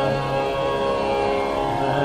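Hindustani classical music in raag Nat Malhar: a steady drone with sustained held notes.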